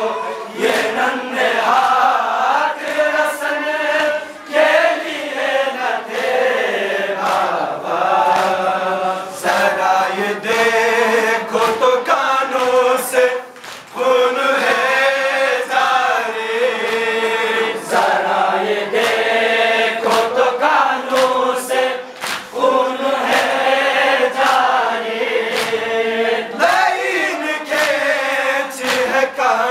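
A group of men chanting a noha, a Muharram lament, in unison over a microphone, with rhythmic chest-beating (matam) striking about once a second.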